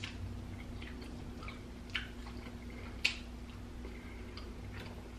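A man chewing a mouthful of food close to the microphone: faint mouth clicks throughout, with two sharper clicks about two and three seconds in.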